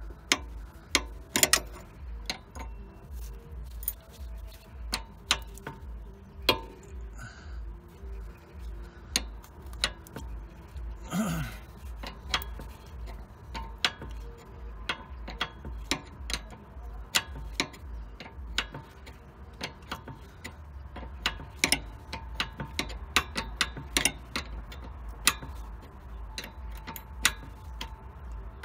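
Hand wrench working on a car's steering tie rod end as it is unscrewed from the inner tie rod: sharp metallic clicks, a few a second in irregular runs.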